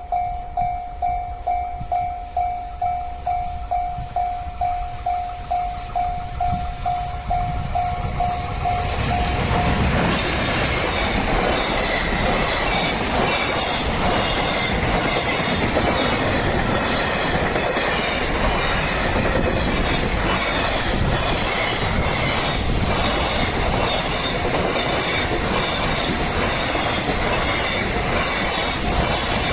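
Level-crossing warning bell ringing in steady, evenly repeating electronic pulses. About nine seconds in, a freight train hauled by an EF210 electric locomotive reaches the crossing and runs past loudly, its wagon wheels clicking rhythmically over the rail joints and drowning out the bell.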